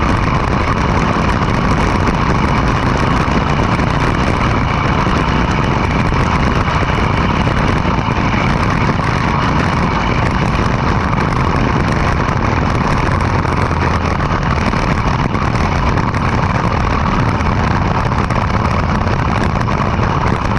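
Go-kart's small gasoline engine running steadily while the kart is driven, a loud even drone with no clear revving up or down.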